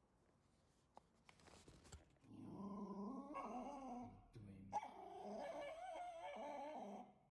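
A dog vocalizing: two long, wavering calls, the first starting about two seconds in and the second cutting off suddenly near the end.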